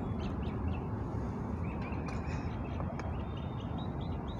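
Birds calling: a run of short, repeated calls in the second half, over a steady low rumble.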